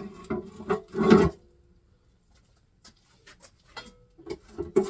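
Tools and metal engine parts knocking and clattering as a part is worked off a 350 Chevy small-block. A quick run of knocks comes first, the loudest about a second in, then a pause of about a second and a half, then scattered lighter clicks that grow busier near the end.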